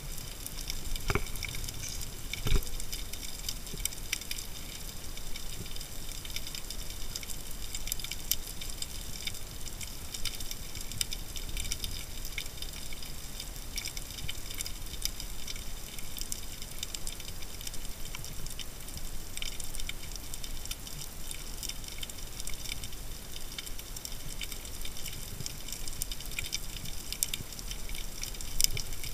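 Underwater ambience picked up by a camera in its housing during a spearfishing dive: a steady crackle of fine high clicks, with a couple of sharp knocks in the first few seconds.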